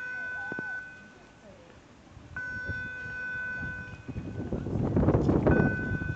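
Electronic warning signal of a harbour swing footbridge, a steady high beep about two seconds long repeating about every three seconds, the alarm that the bridge is about to move. About five seconds in, a louder rush of wind noise on the microphone covers it.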